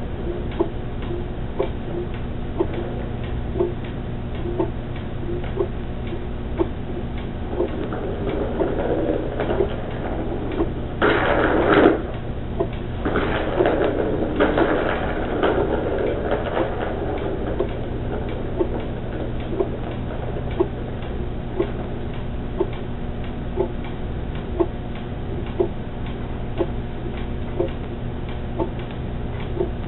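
Regular ticking about once a second over a steady low hum. A louder burst of rustling noise comes about a third of the way in and trails off over the next few seconds.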